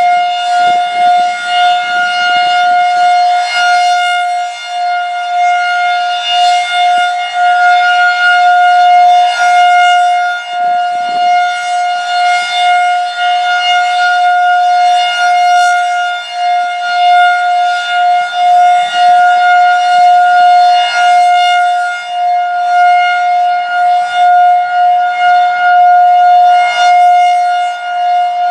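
Federal Signal 2001 tornado siren sounding a steady Alert tone: one unchanging high pitch that swells and fades about every three seconds as the rotating head sweeps past.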